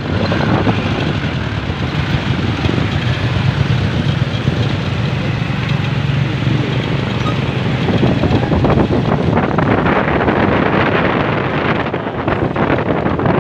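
Motorcycle engine running under way, a steady low drone under heavy wind buffeting on the microphone.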